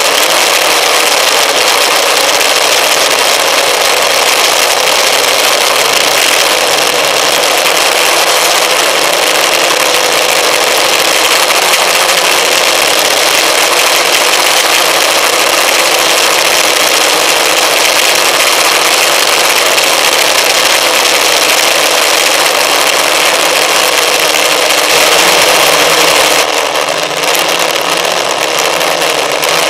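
An FPV aircraft's motor and propeller run steadily with rushing air, heard loud and close from the onboard camera. About 26 seconds in the sound changes and turns duller, with less hiss and a lower hum.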